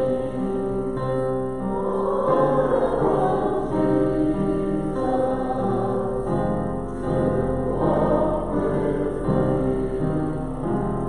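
A congregation singing a hymn together with keyboard accompaniment, in long held notes.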